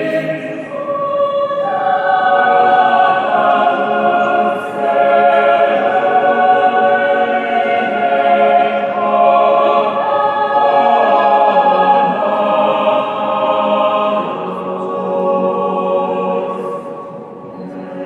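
A cappella choir singing long sustained chords, the voices moving to new chords every few seconds. It grows softer near the end.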